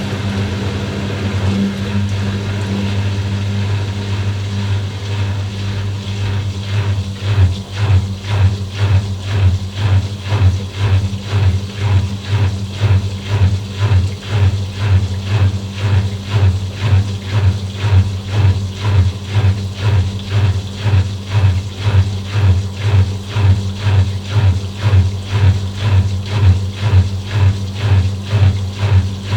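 Washing machine running, its motor giving a steady low hum. About seven seconds in, the sound turns into a regular pulsing of somewhat under two beats a second as the drum turns.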